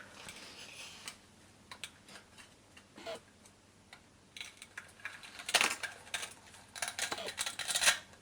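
Toy food pieces and a toy knife being handled, with scattered light clicks and taps. In the second half come several short rasping rips as the Velcro halves are cut or pulled apart.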